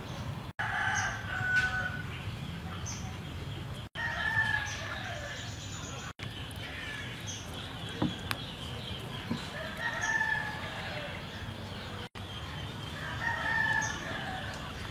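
Roosters crowing several times, one call every few seconds, over a steady rural background. The sound drops out completely four times for an instant, where the audio has been cut.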